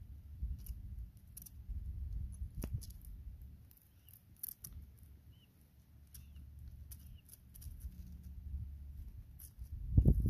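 Desert tortoise's claws scraping and clicking on sandstone as it works its way to the edge of a rock ledge, over a low wind rumble. Near the end comes a loud thump as it tips over the ledge.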